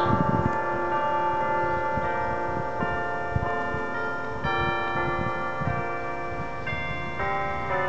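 Church bells ringing, several bells of different pitches struck one after another, each note ringing on under the next.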